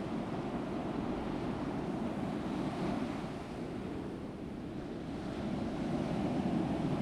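Ocean surf washing steadily, easing off a little about three seconds in and swelling again near the end.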